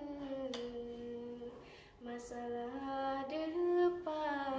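A girl chanting a Malay syair verse unaccompanied, drawing out long held notes that step slowly up and down in pitch. She breaks off briefly about two seconds in, then starts the next line.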